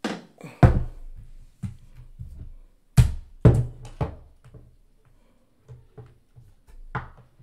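Music with hard drum hits and a short, punchy bass line underneath.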